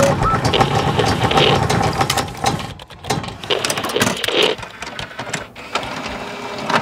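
Sound design for an animated logo intro: a rapid run of mechanical clicking and ratchet-like ticking with a couple of swelling whooshes, ending in a sharp hit.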